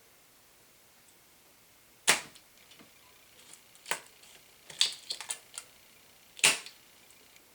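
Spring-loaded solder sucker (desoldering pump) going off with a sharp snap about two seconds in and again near the end, with a quick run of smaller clicks and knocks between.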